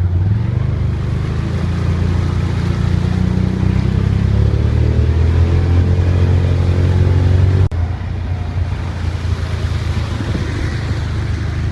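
Vehicle engine running steadily under way, with a rise in pitch over a few seconds in the middle. The sound breaks off abruptly for an instant about eight seconds in.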